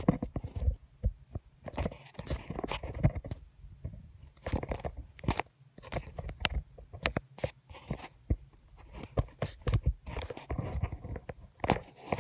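Irregular close-up clicks, taps and low knocks with some rustling, like small objects being handled and tapped right at the microphone.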